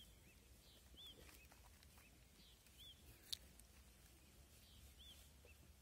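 Near silence, with a bird's short, high, arched chirps repeating faintly every second or two and one sharp click about three seconds in.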